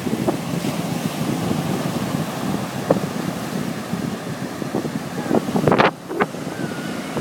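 Surf breaking and washing up the beach, with wind buffeting the microphone; the sound briefly gets louder a couple of times near the end.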